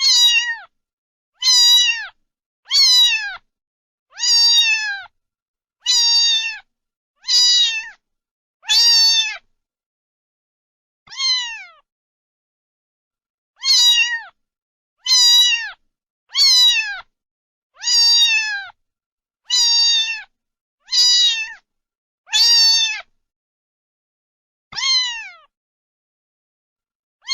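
Domestic cat meowing over and over: about seventeen short meows, each falling in pitch, roughly one every second and a half. There is a longer pause about ten seconds in.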